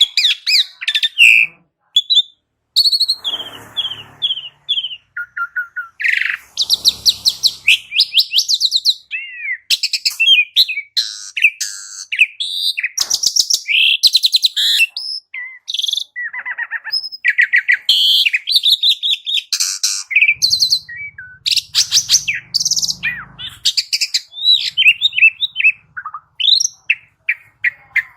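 Pied starling (jalak suren) singing a long, varied run of loud whistles, sliding notes and fast chattering phrases, mixed with a few harsh rasping calls.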